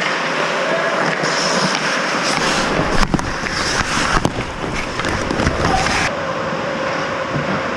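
Ice hockey play on the rink: skate blades scraping and carving the ice in a steady hiss, with a couple of sharp clacks about three and four seconds in.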